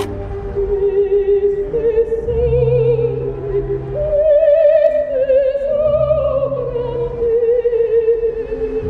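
Operatic singing: a voice holds long notes with wide vibrato, stepping up to a higher note about four seconds in and back down near seven seconds, over a low sustained accompaniment.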